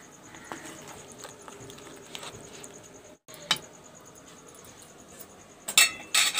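A metal spatula stirring a simmering vegetable curry in a steel kadhai, with faint scrapes and soft taps against the pan. Near the end, steel utensils clank twice, loudly and sharply.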